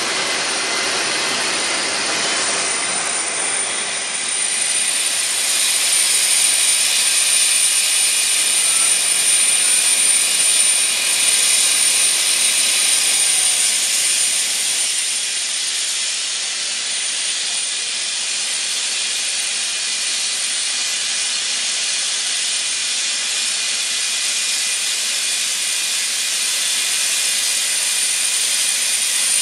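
Aircraft jet turbine running steadily: a constant high-pitched whine over a rushing hiss, a little louder from about six to fourteen seconds in.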